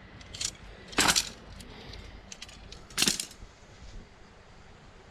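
Light metallic clinks and rattles of camping gear being handled, with the loudest clinks about one second and three seconds in.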